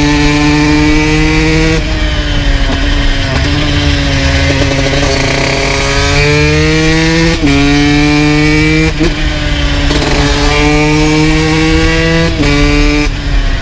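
2002 Honda CR125's single-cylinder two-stroke engine with an FMF full exhaust, pulling under load: the pitch climbs and then drops sharply at each upshift, about three times.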